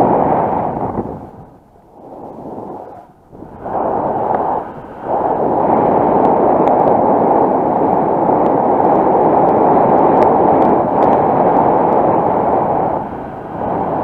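Wind rushing over the camera microphone in paraglider flight, a loud, steady buffeting that drops away briefly twice in the first few seconds.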